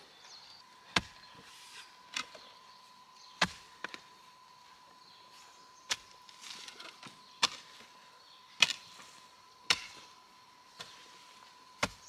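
About ten sharp strikes, roughly one a second, like a tool hitting a hard surface, with a faint steady high tone underneath.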